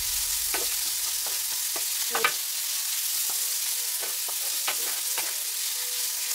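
Chopped onions, bell peppers and ginger frying in curry-powder oil in a nonstick pan, a steady sizzle, while a wooden spoon stirs them, scraping and knocking against the pan now and then.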